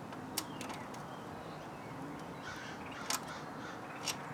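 Quiet outdoor background with faint calls from distant birds, likely crows, and three light clicks, about 0.4, 3.1 and 4.1 seconds in, as tools and small parts are handled.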